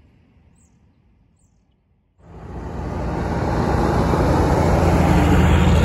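Faint for about two seconds, then highway traffic cuts in suddenly: a heavy truck's diesel engine and tyre noise, a steady low rumble that grows louder as it comes by.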